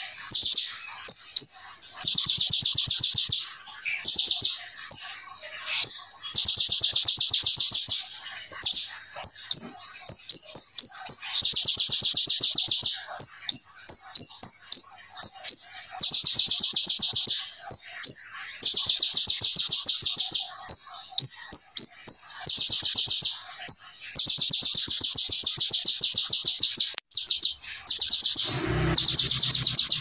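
Kolibri ninja sunbird singing hard. Long, high, rapid buzzing trills of a second or two alternate with short sharp chirps, the 'brem' roll it has learned from the bar-winged prinia (ciblek). A brief low rumble comes near the end.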